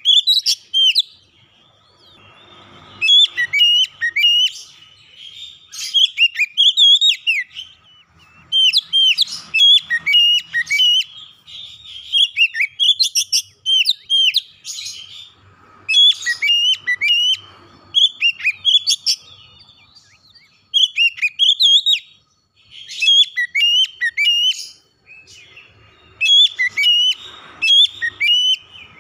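Oriental magpie-robin singing: a varied song of quick whistled notes that bend up and down, in phrases a second or two long broken by short pauses.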